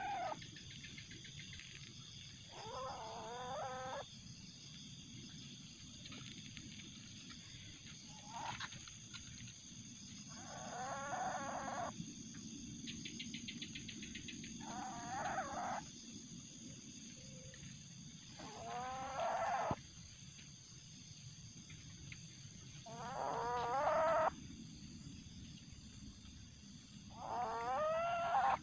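Young Asian palm civet calling: six pitched, wavering cries about a second long, roughly every four seconds, each swelling and then cutting off suddenly, with a shorter call in between.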